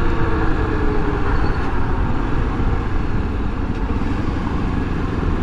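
Honda XRE300's single-cylinder engine running while riding in traffic, under a steady rush of wind and road noise on the bike-mounted microphone.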